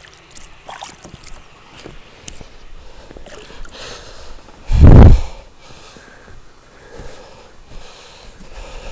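A short, loud rush of air buffeting the microphone about five seconds in, over faint rustling and light clicks of handling.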